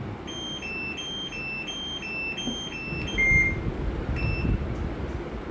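Singer washing machine's control-panel beeper playing a quick run of beeps that alternate between two high notes for about three seconds, then one lower note and, a second later, a single further beep. A low rumbling noise rises behind it from about three seconds in.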